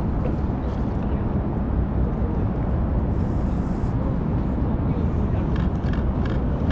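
A cat chewing and licking wet food from a steel dish, heard as a few faint clicks near the end over a steady low outdoor rumble.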